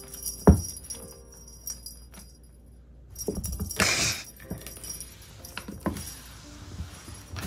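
Small bell on a cat wand toy jingling as a kitten bats and pounces at it, with a sharp thump about half a second in and a brief scuffling rustle about four seconds in.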